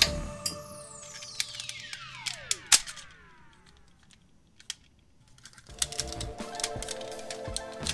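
Sharp plastic clicks and snaps as parts of a DX Shinkenger toy are handled and pushed into place. Under them, background music ends with a falling swoosh in the first three seconds, a short quiet gap follows with one click, and the music comes back a little before six seconds.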